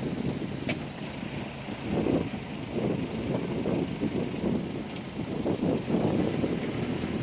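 Komatsu D31P crawler bulldozer's diesel engine running, its sound rising and falling in irregular surges, with a few short sharp clicks.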